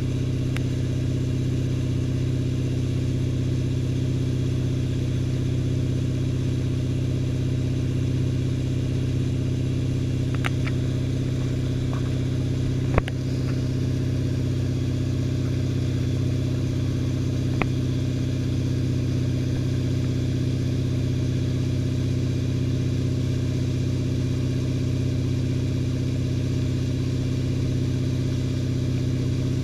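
Tige Switch I wake boat's inboard engine running at a steady drone under load, pulling a wakesurfer at about 10 mph with 700 lbs of ballast aboard. A sharp knock about halfway through, and a lighter one a few seconds later.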